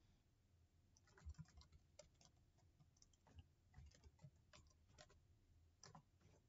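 Faint computer keyboard typing: about a dozen irregular key clicks.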